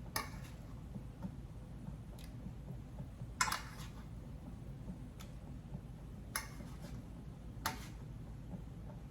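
Cooking utensil clinking and tapping against a pan as chicken breasts are put back into the heating broth: about six short sharp clinks, the loudest about three and a half seconds in, over a low steady background hum.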